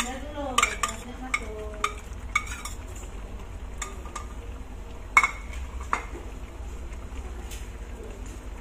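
Cauliflower florets tipped from a bowl into simmering broth in a wok, with a string of sharp clicks and knocks of cookware against the wok. The loudest knock comes about five seconds in.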